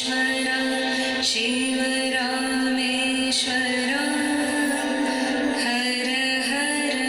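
A voice singing a slow melody in long held notes, with music behind it.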